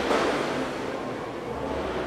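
Subway platform ambience: a steady rushing rumble, a little louder at the very start.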